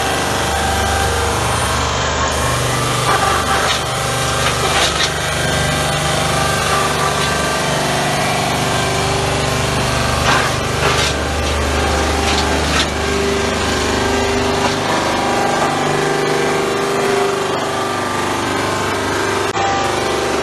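Electric wood-log sawdust grinder running under load, chewing wood into sawdust: a loud, steady machine hum with short bursts of crackling now and then.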